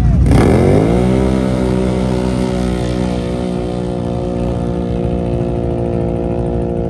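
A pair of drag-racing ATVs launching off the line at full throttle. The engine note shoots up in pitch within the first second, then holds at one steady high pitch as the loudness slowly drops while they pull away.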